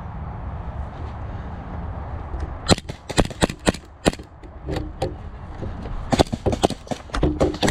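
Airsoft guns firing: a quick, irregular string of sharp shots starting nearly three seconds in, a few more around five seconds, then a denser burst from about six seconds on. Before the shooting there is only a low rumble.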